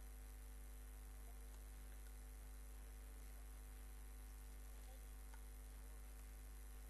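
Near silence: a steady low electrical hum under faint hiss.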